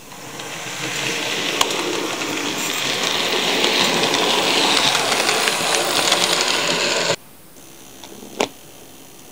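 Model steam locomotive's electric motor and wheels running on the track, a steady whirring rattle that grows louder as it comes close and passes, then cuts off abruptly about seven seconds in. A single click follows about a second later.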